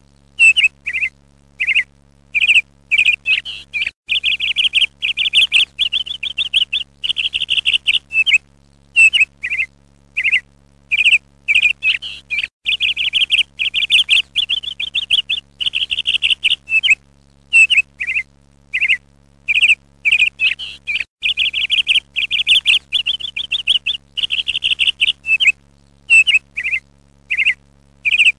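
A small songbird singing: short phrases of rapid chirps and trills, repeating with brief pauses, over a faint steady low hum.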